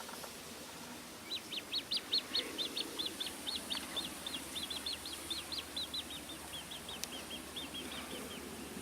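A bird calling outdoors: a long run of quick, high, repeated notes, about four a second, starting just over a second in and slowly fading.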